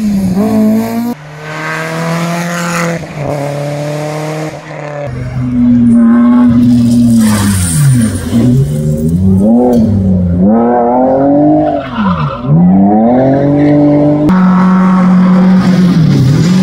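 Rally car engines at high revs in several short clips: the engine note climbs through gear changes, then one car's revs drop and rise again several times as it brakes and accelerates, then another car holds high revs.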